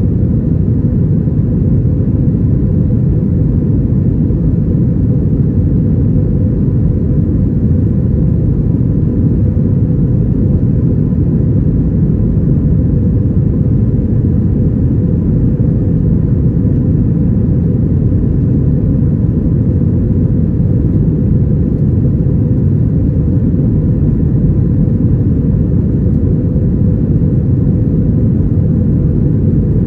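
Steady cabin noise inside an Airbus A321-232 airliner in flight: a deep, even rumble from its IAE V2500 turbofan engines and the airflow over the fuselage, with a faint high steady whine running through it.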